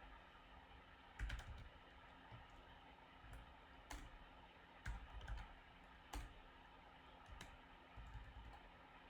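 Scattered computer keyboard keystrokes: about seven separate, irregular taps over faint steady background noise.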